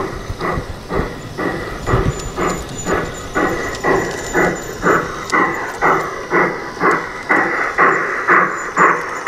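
Garden-railway model steam locomotive, Rio Grande No. 205, chuffing steadily at about two chuffs a second, getting louder as it approaches.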